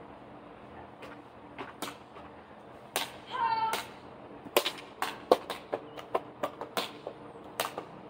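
A run of about a dozen sharp cracks and knocks, irregular at two to three a second, starting about three seconds in; a brief child's shout comes just after the first crack.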